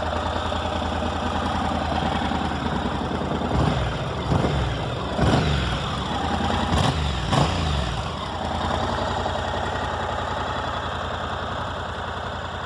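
Honda NC700's 670 cc parallel-twin engine idling, blipped up in revs about five times in quick succession a few seconds in, then settling back to a steady idle. The seller calls the engine sweet, with no rattles.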